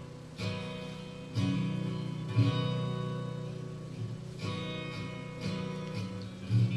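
Acoustic guitar strumming chords, about one strum a second, each chord left to ring out.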